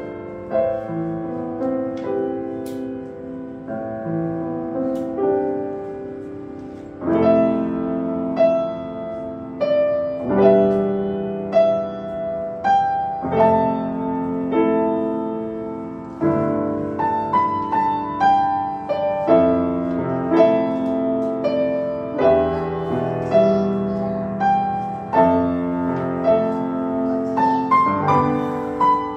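Grand piano played solo, a slow melody over sustained chords; it is soft at first and grows louder about seven seconds in.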